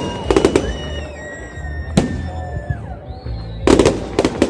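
Fireworks going off in quick clusters of sharp bangs: a rapid volley of cracks near the start, a single bang about two seconds in, and another rapid volley near the end.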